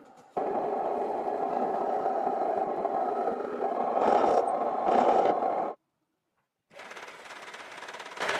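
A power tool working wood, running steadily for about five seconds, louder twice near the end, then stopping abruptly; after a second's pause it starts again and builds up.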